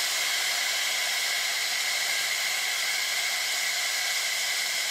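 Steady hiss of steam from a homemade steam motorcycle's engine and boiler, with the engine under full boiler pressure (about 16 atmospheres) and held stalled against a tether during a static pull test.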